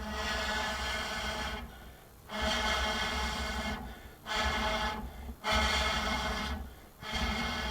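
A person blowing hard, five times, into a small sawdust rocket stove to fan its fire. Each breath lasts a second or more, with short pauses between.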